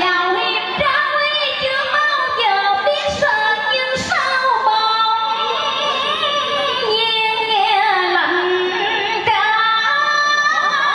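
A woman sings a Vietnamese cải lương excerpt through a microphone, with musical accompaniment. Her melody slides and bends in pitch.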